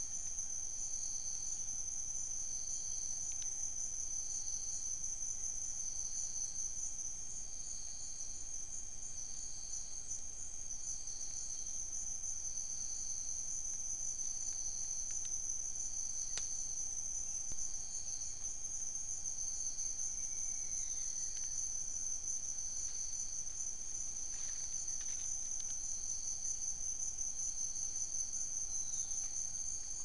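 Chorus of rainforest insects at night: a steady high-pitched trill, with a second insect pulsing about once a second beneath it. A few faint falling calls come through in the second half.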